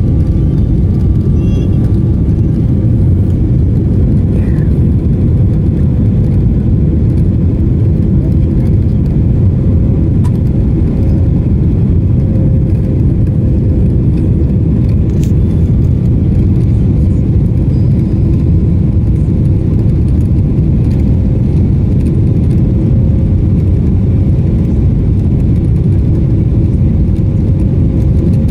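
Steady cabin roar inside a Boeing 777-300ER descending to land: a deep rush of airflow and engine noise, with a faint steady hum running through it.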